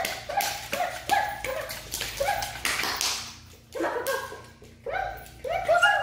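Small dog whining in short repeated high cries, about two a second with a brief pause midway, as it paws at a metal pet gate, with sharp taps of its paws against the gate.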